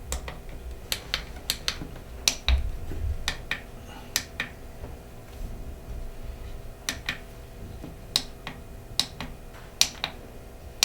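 Sharp plastic clicks of the push buttons on an Owon HDS1021M handheld oscilloscope being pressed, about sixteen at uneven spacing and often two in quick succession, with a brief low thump about two and a half seconds in.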